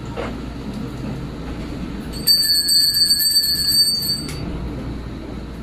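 Small altar bells shaken rapidly, a bright rattling ring that starts about two seconds in, lasts about two seconds and stops abruptly.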